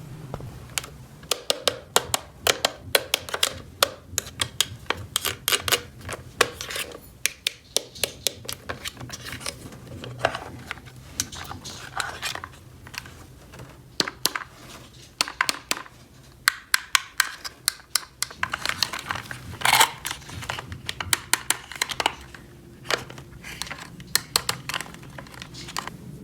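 Small plastic toy pieces clicking and clattering as they are handled and set down, in quick irregular taps, over a faint steady low hum.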